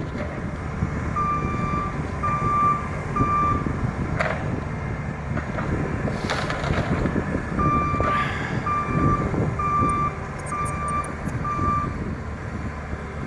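Bobcat skid steer engine running while its reverse backup alarm beeps as it backs up: three beeps, a pause, then five more. A couple of knocks sound in the pause between them.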